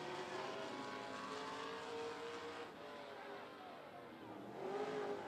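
Dirt-track race car engines running at low speed under a caution, their pitch wavering up and down, with one engine rising in pitch and getting louder near the end.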